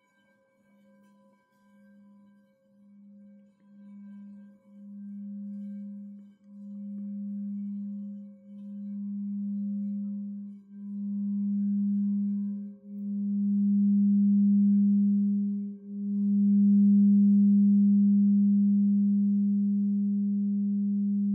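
10-inch Aqua Aura Gold alchemy crystal singing bowl, tuned to G#, being rimmed with a mallet: a single low hum swells from faint to loud, pulsing as it grows, with the pulses spreading further apart. Near the end the mallet comes away and the tone rings on.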